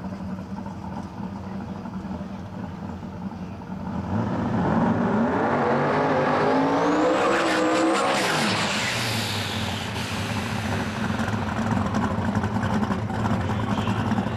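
Twin-turbo V8 of an Outlaw 10.5 drag-racing Mustang running at idle, then revving hard for about five seconds through a burnout with the rear tyres spinning, before dropping back to a steady, loud idle.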